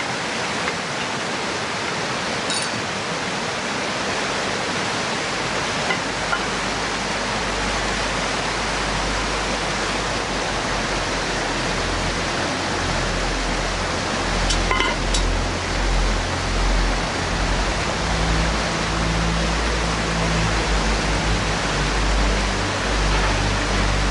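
Steady rushing hiss of heavy rain with wind, low gusts rumbling on the microphone from about six seconds in, and a few faint clicks.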